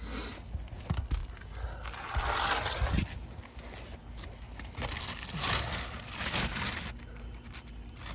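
Asphalt roofing shingles scraping and crinkling as they are handled and slid into place, in two longer stretches of gritty scraping with scattered small knocks.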